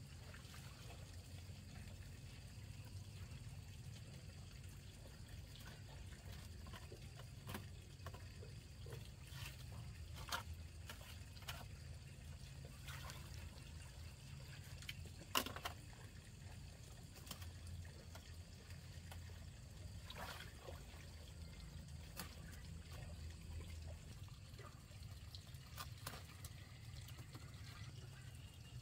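Quiet outdoor ambience with faint trickling water and a steady low rumble, broken by scattered light clicks and snaps, the sharpest about halfway through.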